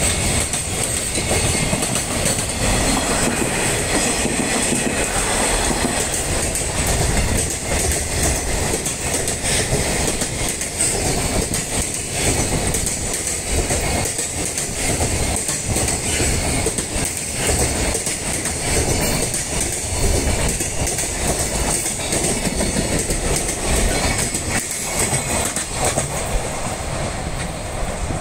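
Container freight wagons of a long EH500-hauled freight train rolling past close by: a steady rumble with the rhythmic clickety-clack of the wheels over rail joints. A steady high-pitched whine runs above it.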